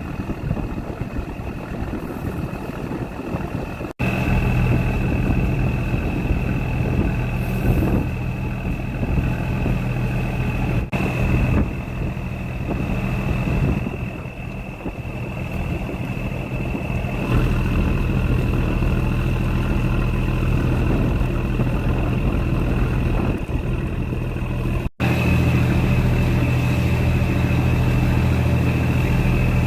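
Boat engine running steadily, a low hum with a thin high whine over it, broken by a few sudden brief dropouts.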